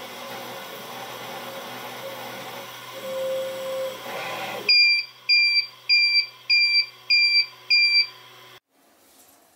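UP! Mini 3D printer running, with a brief steady stepper-motor whine about three seconds in. Its motor noise then drops and it sounds six short, high beeps about half a second apart, signalling that the print is finished.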